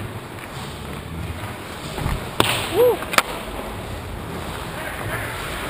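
Ice hockey puck and sticks cracking against the rink boards: two sharp cracks about a second apart, with a brief rising-and-falling cry between them, over steady rink noise.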